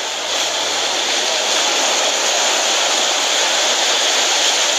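Steady beach ambience: a continuous hiss of surf and wind, with faint crowd voices underneath.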